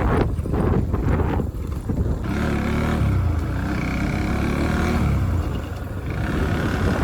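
Motorcycle ride picked up by a helmet-mounted phone: vehicle engine running with wind buffeting the microphone, and a deeper engine sound swelling about two seconds in and fading a few seconds later.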